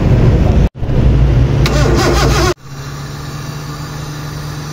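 Four-cylinder Maruti Suzuki petrol engine running loud on its first run after a cylinder head rebuild and new head gasket. The sound breaks off abruptly twice; after the second break, a little past halfway, the engine idles steadily and quieter.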